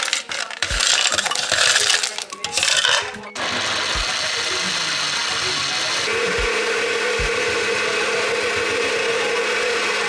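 Countertop blender with a glass jar blending frozen berries into a smoothie: about three seconds of loud, irregular rattling as the frozen fruit is broken up, then a steady motor whine once the mix runs smooth, its pitch shifting about six seconds in.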